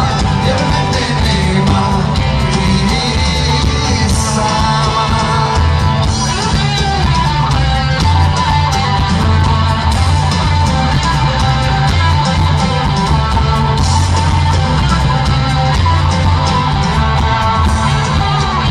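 Live rock band playing loudly: electric guitars, bass and drums with a steady beat, and a singing voice.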